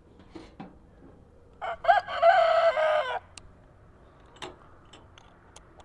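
A rooster crows once, a single pitched call of about a second and a half, with a few faint clicks and taps before and after it.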